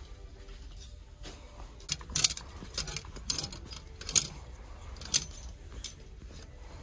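Light metallic jingling, about five short clinks starting about two seconds in, over a steady low rumble.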